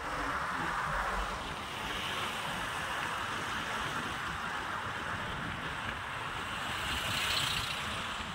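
Steady rushing road and wind noise from a moving vehicle.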